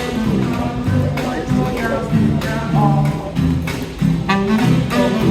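Live band music with a walking double bass line, plucked strings and some voices.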